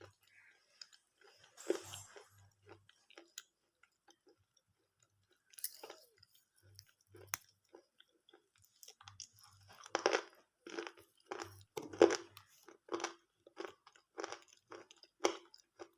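Chewing of water-soaked slate pencil pieces: damp, muted crunches. They come sparse and separate at first, then settle into a steady run of chews about two a second from about ten seconds in. Soaking softens the pencil, so it gives little real crunch.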